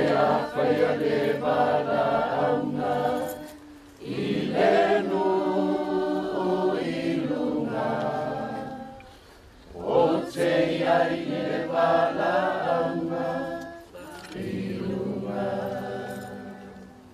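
A crowd of mourners singing a hymn together, the sung phrases breaking off briefly three times for breath.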